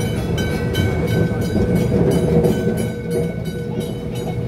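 Heritage electric tram running along its track, heard from inside the car: a steady rumble with a constant whine and a regular clicking of about three a second.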